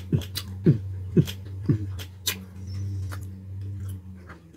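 A man chewing food and making short, falling 'mm' sounds of enjoyment, about two a second, over wet mouth clicks. Then comes a longer low steady hum.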